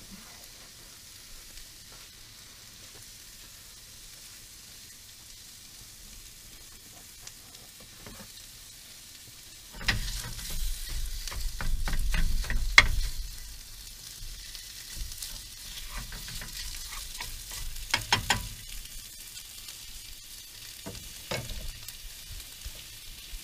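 Sausage meat sizzling in a nonstick frying pan on a portable camp stove. About ten seconds in, a wooden spatula starts scraping and knocking in the pan as the meat is stirred and broken up, with a few more knocks later on.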